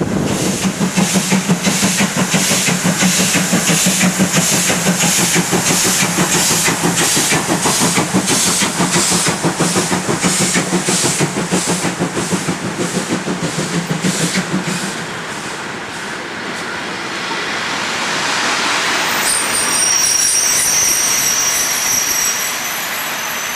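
Steam-hauled special train behind class 50 locomotive 50 622 running, with a regular beat about twice a second. The beat then gives way to a quieter rushing sound, and from about 19 s in a high-pitched squeal from the rolling train sets in.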